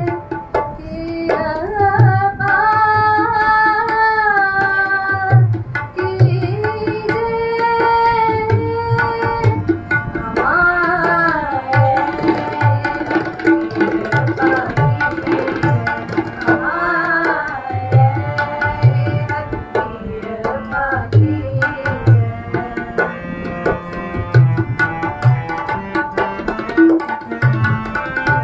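Sikh shabad kirtan: a woman's voice singing a devotional hymn over harmonium, with tabla strokes keeping the rhythm.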